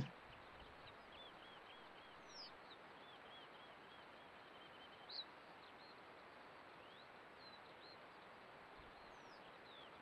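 Faint outdoor field recording: a steady low hiss with distant small birds calling in quick runs of repeated chirps, and one brief, slightly louder note about five seconds in.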